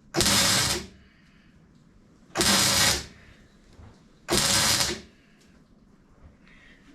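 Three short bursts of electric welding, each a little over half a second and about two seconds apart, filling pinholes left in the earlier welds on a home-modified water pump.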